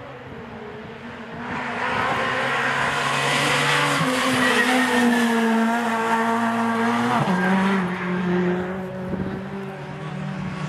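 Ford Fiesta rally car driving hard past at speed, its engine at high revs growing loud as it approaches. The engine note jumps up in pitch about four seconds in and drops back about seven seconds in as the car goes by, then carries on more faintly.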